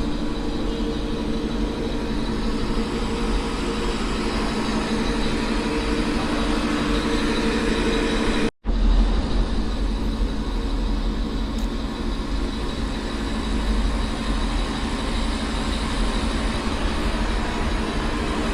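Steady rumble and hum of a moving vehicle. It drops out for a moment about eight and a half seconds in, then carries on.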